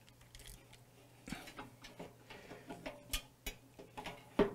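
Faint scattered clicks and rustles of a plastic microwave door-switch holder and its wiring being handled and moved back into place, over a low steady hum.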